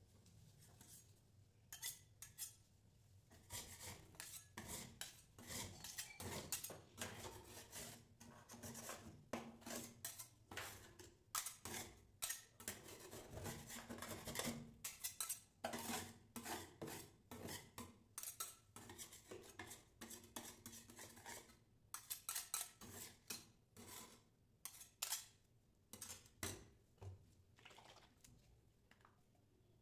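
Steel spatulas chopping and scraping frozen Sprite on a steel ice-cream cold plate: rapid metal-on-metal tapping strikes mixed with scraping, thinning out near the end.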